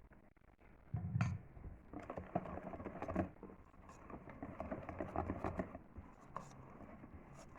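Cake batter being worked by hand in a mixing bowl as flour is added: a knock about a second in, then rapid, irregular clicking and scraping of the utensil against the bowl.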